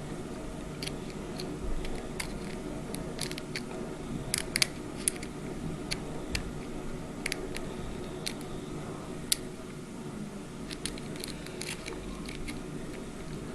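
Lock pick and tension wrench working the pins of a 5-pin mortise cylinder, taken for a Schlage: irregular light metallic clicks and ticks as the pins are set, over a faint steady hum.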